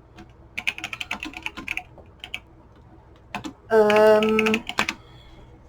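Quick clicking of keys being typed on a computer keyboard, in a run of rapid keystrokes, then a few more clicks; a short hummed "hmm" comes in about two-thirds of the way through.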